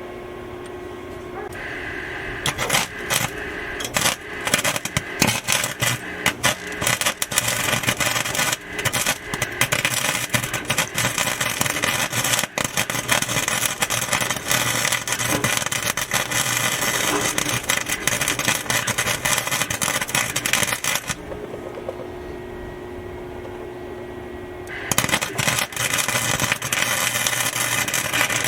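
Wire-feed (MIG) welder arcing: a long run of dense crackling sizzle starts about two seconds in and stops about three quarters of the way through, then starts again near the end. A steady hum fills the pause between the two welds.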